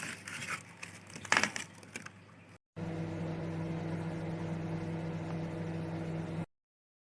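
A few clicks and knocks of handling, the loudest about a second in. Then a Khind MW2001 microwave oven runs with a steady electrical hum for about four seconds and cuts off.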